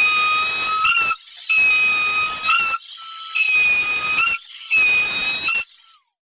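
Metal drilling machine cutting into steel with a high, steady whistling squeal. The squeal breaks off and starts again roughly every second, wavering in pitch at each break, and then stops suddenly.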